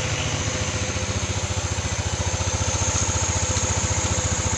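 Yamaha NMAX scooter's single-cylinder four-stroke engine idling steadily with an even pulse, running again just after a lost-compression repair.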